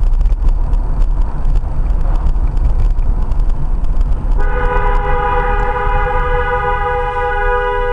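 Low rumble of a moving vehicle with scattered knocks, then about four and a half seconds in a loud horn starts and holds a steady chord of several tones.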